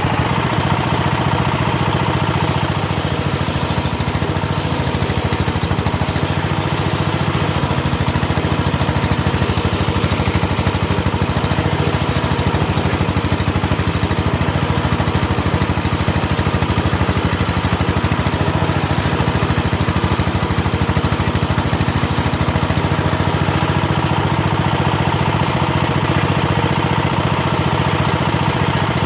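Engine of a home-built sawmill circular saw running steadily with a fast, even pulse. A brighter hiss rides over it for a few seconds, starting about two seconds in.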